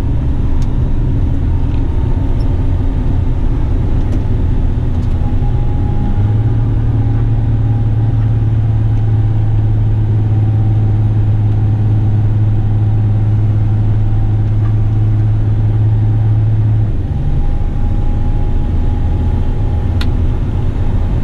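Western Star truck's diesel engine and drivetrain heard from inside the cab while driving, a loud steady low drone that grows stronger about six seconds in and eases off a few seconds before the end.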